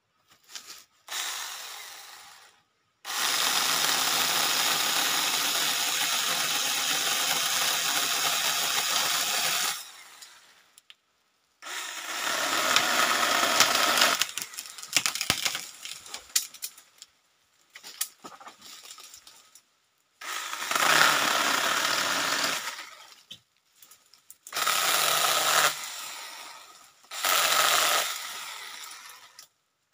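Cordless battery-powered mini chainsaw cutting through a thin tree trunk and branch. It runs in bursts: a short one, then a steady run of about seven seconds, then several shorter, more broken bursts of about two seconds each, the motor stopping between them.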